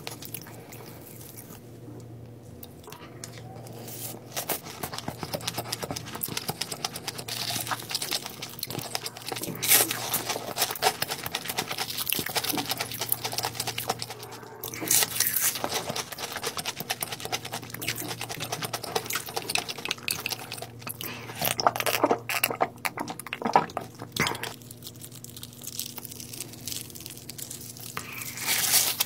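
Close-miked eating sounds: chewing and crunching of fried food with wet mouth clicks and smacks, some sharper bites standing out, and a louder bite near the end.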